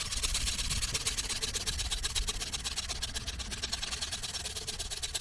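Chainsaw engine idling steadily with a fast, even pulse.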